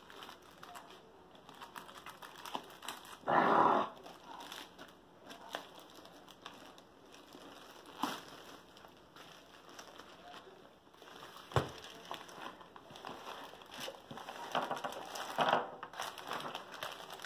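Plastic packaging of a diamond painting kit crinkling and rustling in irregular bursts as it is handled and opened, with a few light knocks.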